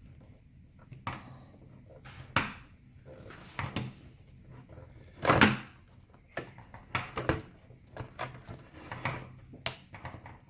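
Hands working on a laptop's LCD panel and its connector tape: scattered small clicks, taps and rustles of plastic and tape, the loudest about five seconds in.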